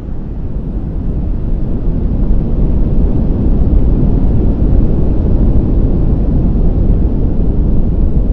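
Deep rumbling sound effect that swells over the first three seconds and then holds steady, with no distinct blasts.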